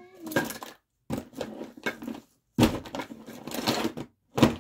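Rummaging through a bucket of fidget toys: plastic and rubbery toys rustling and knocking together in several short bursts, broken by brief moments of silence.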